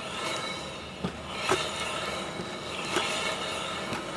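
Rear wheel of a Hyundai Solaris turned by hand against a dragging rear disc brake: a steady metallic rubbing of pad on disc, with a few louder scrapes along the way. The wheel turns stiffly, and the owner takes it for a sticking brake.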